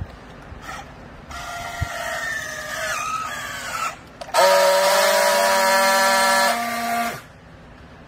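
Battery-powered handheld strapping tool on plastic strap: its motor whines for a couple of seconds as it tensions the strap, the pitch sagging under load, then after a short pause a louder steady buzz for about three seconds as it friction-welds the strap seal, cutting off sharply about seven seconds in.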